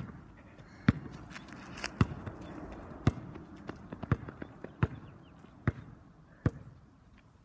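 A basketball being dribbled, sharp bounces about once a second.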